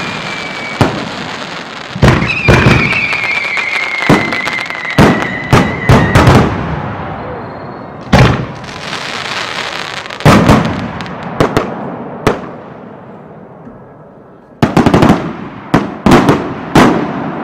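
Aerial fireworks shells bursting at very close range: sharp bangs in quick succession, each followed by crackle and a rumbling echo. A high whistle glides slowly downward in the first few seconds, and a fresh cluster of rapid bangs comes near the end after a brief lull.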